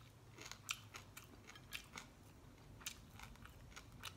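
Faint, scattered crunches of someone chewing crispy fried galunggong (round scad).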